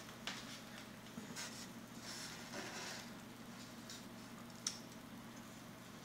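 Faint handling sounds as a small foam model airplane is lifted out of its moulded foam packing tray: light scrapes and soft taps, with one sharper click about four and a half seconds in.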